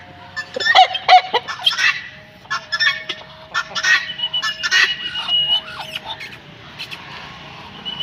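Backyard poultry (guinea fowl, muscovy ducks and chickens) calling around a feeding hand: a run of short, harsh squawks and chattering calls, loudest about a second in.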